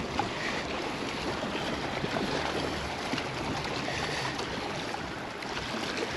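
Steady outdoor rush of wind and lake water, with small scattered splashing ticks.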